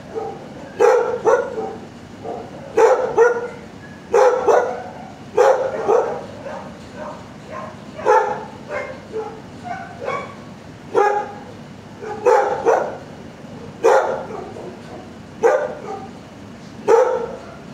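A dog barking over and over, a single bark or a quick pair of barks about every second and a half.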